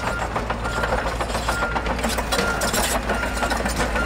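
Bulldozer running: a steady engine rumble under a dense clanking rattle, with a backup alarm beeping about once a second.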